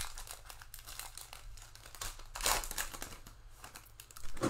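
The wrapper of a football trading-card pack crinkling and tearing as it is ripped open and the cards are slid out. There is a louder rustle about halfway through and a short knock at the very end.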